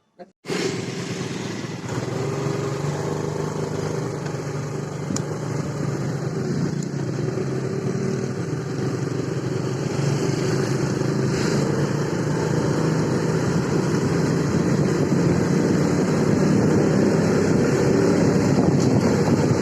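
Motorcycle engine running steadily while riding, with wind rushing over the microphone; it starts abruptly about half a second in and grows slightly louder.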